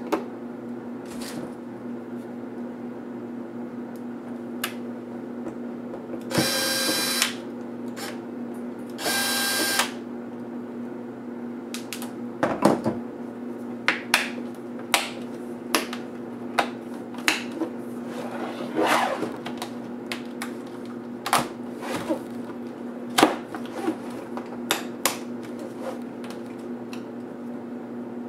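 Plastic screen bezel of a Samsung NP305 laptop being pried off by hand, its clips letting go in a string of sharp clicks and snaps through the second half. Earlier come two buzzing sounds of about a second each, all over a steady low hum.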